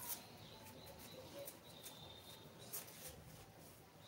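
Near silence: faint background hiss with a few soft clicks and a faint, thin high tone held for a couple of seconds early on.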